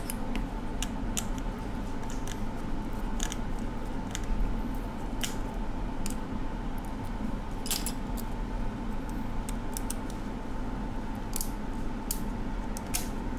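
Scattered small metallic clicks and taps of a precision screwdriver working tiny screws out of an iPhone 6 Plus logic board, over a steady background hum.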